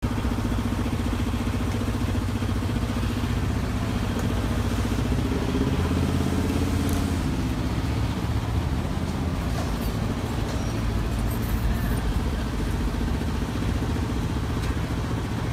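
An engine running steadily at an even low pitch, with a slight rise and fall partway through, over street noise.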